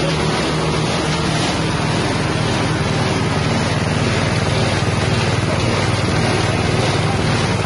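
Spice-and-feed grinding mill driven by a 6.5 hp engine, running steadily under load. The engine's even hum lies under the constant hiss of material being milled and pushed out of the outlet.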